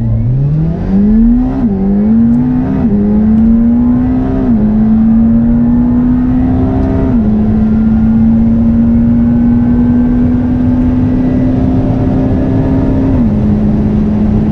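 McLaren Senna's twin-turbo V8 at full-throttle acceleration, climbing in pitch through each gear and dropping at five quick upshifts from first to sixth, with each gear held longer than the one before.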